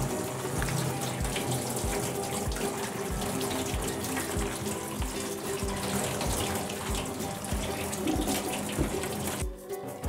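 Kitchen tap running water into a stainless steel sink, shutting off about nine and a half seconds in. Background music with a steady beat plays throughout.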